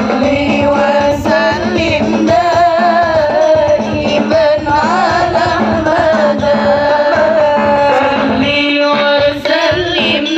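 Sholawat, a devotional Islamic song, sung in a high voice with a wavering, ornamented melody over steady drum accompaniment.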